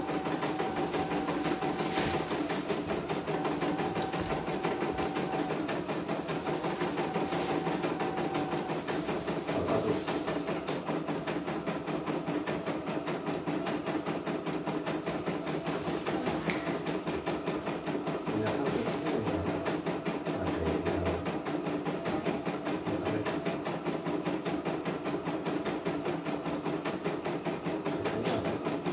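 Computerized embroidery machine stitching a test design: a rapid, even needle clatter over the motor's hum as the hoop carriage steps the fabric.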